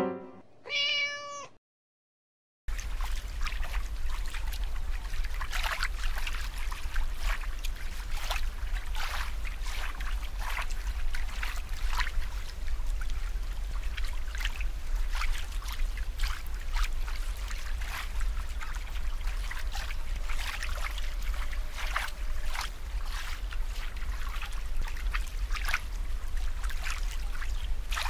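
Aquarium water bubbling and trickling, with many small bubble pops and splashes over a steady low hum. It starts about three seconds in, after the tail of a short piano jingle with a meow and a second of silence.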